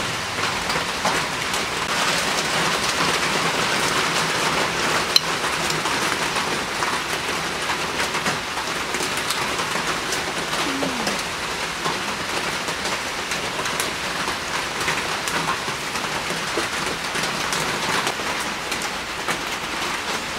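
Steady rain falling and pattering on surfaces, with a sharp click about five seconds in.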